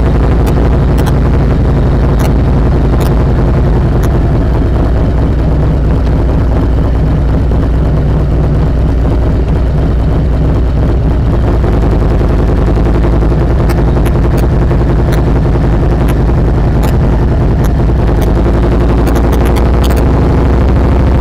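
Harley-Davidson Touring motorcycle's V-twin engine running loud and steady, its exhaust giving a rapid, even pulse.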